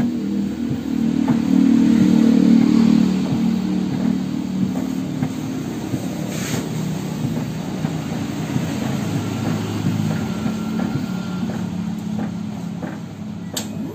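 Automatic paint-tinting machine running its colorant pump while it dispenses red tint into a pail of base paint: a steady motor drone, loudest about two seconds in.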